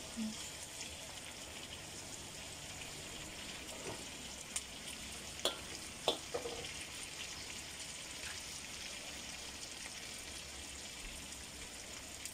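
Pork cubes and chicken drumsticks sizzling steadily in a steel wok, being browned now the braising water has cooked off. A few sharp clicks come about halfway through.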